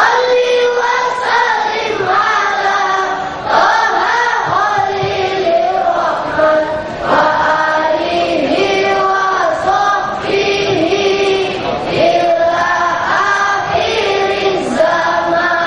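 A large group of boys and young men singing a chant together in unison, in long held phrases that rise and fall in pitch.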